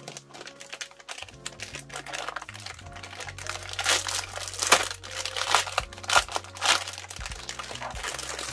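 Clear plastic bag crinkling and crackling as a keyboard is pulled and slid out of it, with the loudest crackles in the middle.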